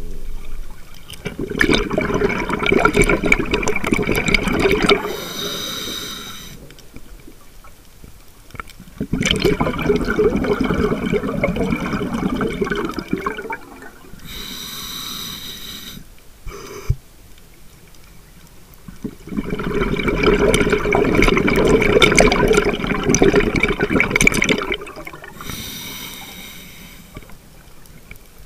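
Scuba diver breathing through a regulator: three long rushes of exhaled bubbles, each followed by a shorter hiss of inhaling through the demand valve, a breath about every nine to ten seconds.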